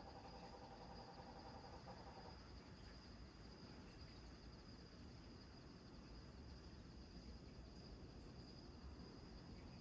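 Crickets chirping in a faint, steady high pulsing trill over a low, even rumble. A pitched droning call stops about two seconds in.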